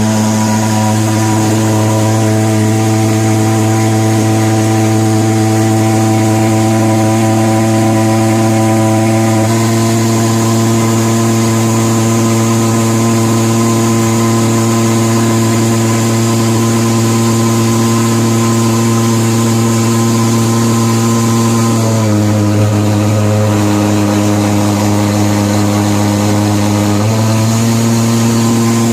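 SP Giant thermal fogger's pulse-jet engine running steadily with a loud, even buzzing drone, its no-start fault repaired. Its pitch shifts slightly a few times, dipping about 22 seconds in and coming back up about five seconds later.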